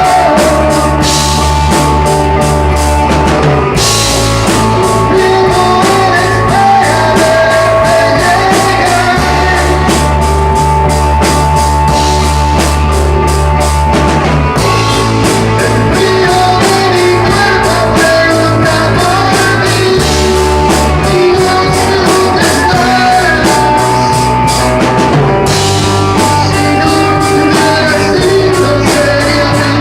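Loud rock music with a drum kit and guitar playing steadily.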